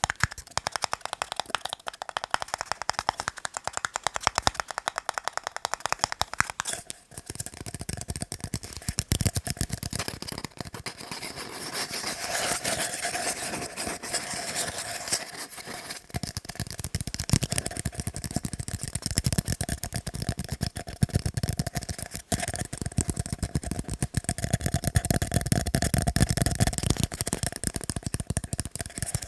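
Fast tapping on tiny cups: a dense, rapid stream of light clicks throughout. The texture shifts about seven seconds in, and the tapping sounds fuller and lower in the second half.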